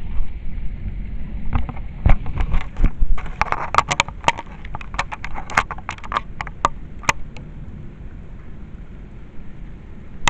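Thunderstorm rain: a low rumble with many sharp, irregular taps, thickest in the middle and thinning out near the end.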